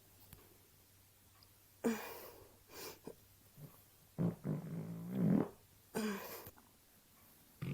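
A string of human farts: a sharp one about two seconds in, a shorter one just after, then a longer pitched one lasting over a second around the middle that bends in pitch, and another sharp one about six seconds in.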